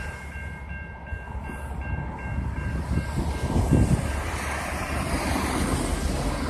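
Railroad track-maintenance machine rolling along the rails with its diesel engine running, wheels clacking over the track. A high tone in a few broken pieces sounds over the first two seconds or so, and a heavy clunk comes a little under four seconds in.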